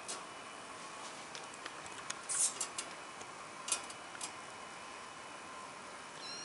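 Kittens scuffling in rough play: scattered light scratches and rustles from claws and fur against sisal rope and the floor, loudest about two and a half and three and a half seconds in. A short, high kitten squeak comes at the very end.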